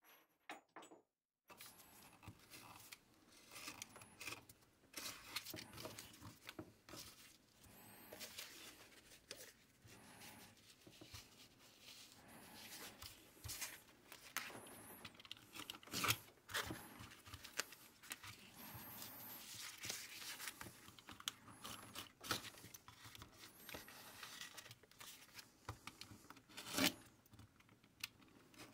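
Snap-off utility knife cutting through glossy magazine paper on a wooden board, with the paper rustling and crinkling as it is handled. The scraping and crinkling start about a second and a half in and go on in irregular strokes, with a few sharper clicks.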